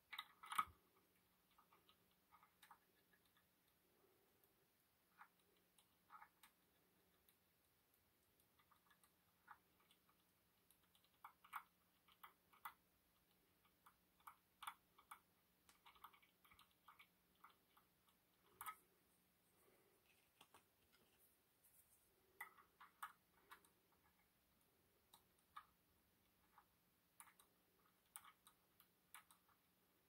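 Faint, irregular small clicks and scrapes of a lock pick working inside an EVVA MCS magnetic lock cylinder, picked up through a contact mic, with a faint steady hum underneath.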